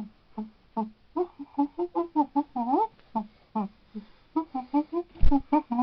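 A man's voice making short, staccato pitched vocal sounds in a quick rhythm, about three a second, in the manner of vocal percussion. A low thump comes about five seconds in.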